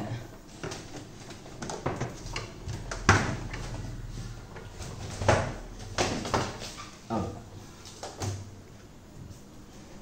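Rubber magnetic door gasket being pulled out of a refrigerator door's retaining channel: a series of sharp knocks and scrapes against the door, the loudest about three seconds in and another about five seconds in.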